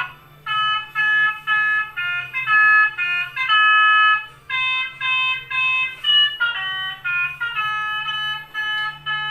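Telolet bus horn playing a tune: a quick run of bright, chiming notes, mostly short with brief gaps between them and a few held longer, over a low steady hum.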